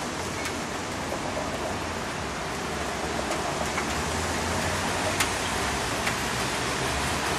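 Rain falling steadily on a city street, with a low rumble of traffic that grows a little toward the end. Scattered sharp drips ticking through the hiss, one louder about five seconds in.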